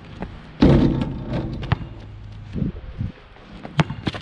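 Sneakers stepping and scuffing on asphalt as a basketball player runs in on his approach. There is a louder noisy burst just over half a second in, then a few short thuds and sharp taps.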